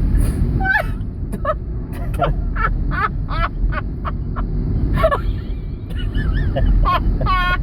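Steady low rumble of surf and wind, with a run of short honking calls over it, several in quick succession.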